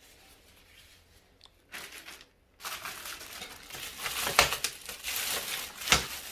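Crinkling, rustling handling noise that starts about two and a half seconds in, with two sharp knocks near the end.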